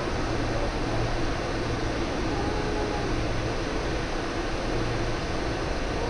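Steady hiss and low rumble of a large indoor pool hall's ambience, with no distinct events standing out.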